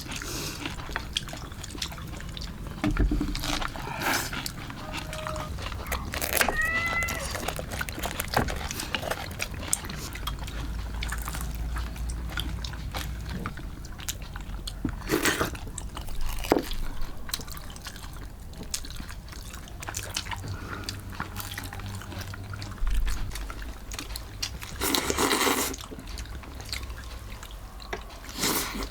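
A short animal cry, one pitched call about six and a half seconds in, among scattered light clicks and knocks, with a brief scraping or rustling noise near the end.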